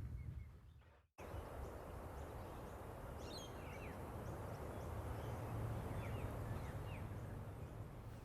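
Faint outdoor ambience: a steady hiss of background noise with a few short bird chirps. It starts after a cut to total silence about a second in.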